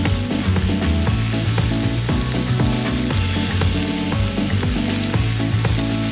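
Food sizzling as it fries, a steady crackling hiss, over background music with a stepping bass line.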